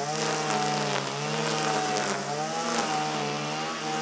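A small engine running steadily close by, its pitch wavering slightly.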